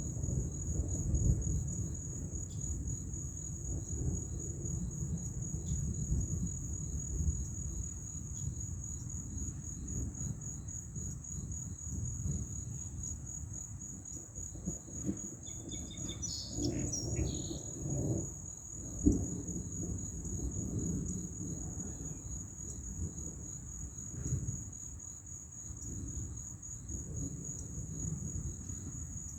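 Insects trilling steadily in a high, finely pulsing tone, over a low rumble that swells and fades, with a short thump about two-thirds of the way through.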